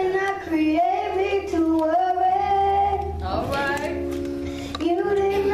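Two children singing a song through handheld microphones, in long held, gliding notes, over an instrumental backing with sustained chords.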